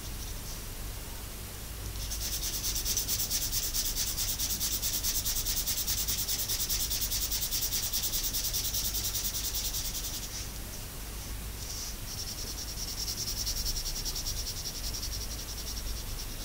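Felt-tip marker rubbing on paper in fast back-and-forth colouring strokes, a dense high scratchy squeak. It eases off briefly about ten seconds in and then resumes.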